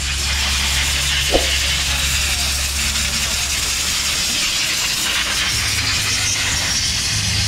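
Steady hissing noise with a low hum underneath, and a single sharp clink about a second and a half in.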